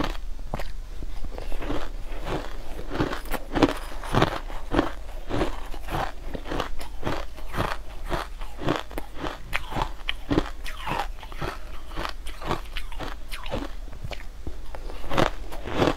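Chewing a mouthful of colored crushed ice: a continuous run of crisp crunches, about three a second.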